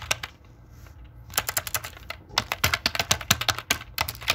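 Computer keyboard typing: a single keystroke, a pause of about a second, then a quick run of keystrokes.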